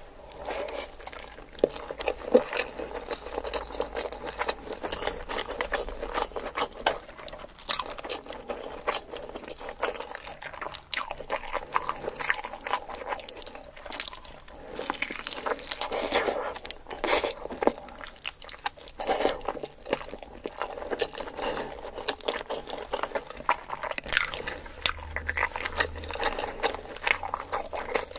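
Close-miked eating: a person chewing mouthfuls of rice and chicken curry eaten by hand and biting into a curried chicken leg, with many small clicks throughout.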